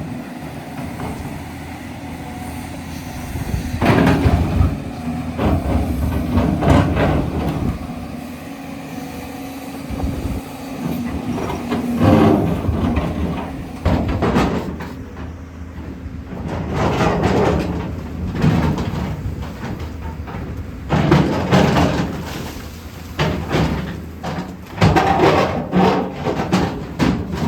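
JCB 245 HD LR long-reach excavator's diesel engine running under load, with loud bursts of clattering and scraping every few seconds as the bucket digs into rock.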